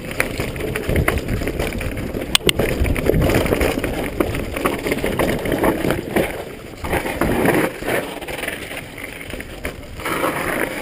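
Wind rushing over the camera microphone while a mountain bike rolls fast over concrete and gravel, its tyres hissing and the frame rattling, with sharp clicks and knocks from bumps, a loud one about two and a half seconds in.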